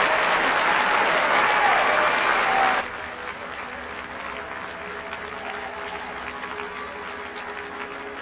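Large crowd applauding, loud, cut off abruptly about three seconds in. After the cut a much quieter crowd hubbub remains, with faint sustained tones underneath.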